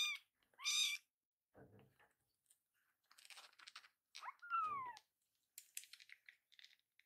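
Kitten meowing: two loud, high meows right at the start, then a meow that falls in pitch about four and a half seconds in. Between the calls come soft little clicks as it suckles from a nursing bottle.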